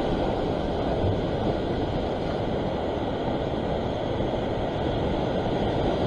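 Sea surf washing against the rocks: a steady rushing noise with no breaks.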